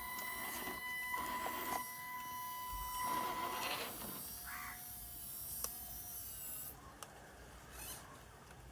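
Small electric motor and gearbox of a 1:10 scale RC crawler whining as it drives, with short bursts of scraping noise in the first few seconds. The whine drops to a lower tone around the middle and fades down about two-thirds of the way through.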